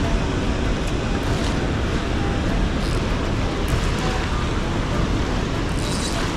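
Steady rush of a fast-flowing river just below a dam, with water pouring through the spillway.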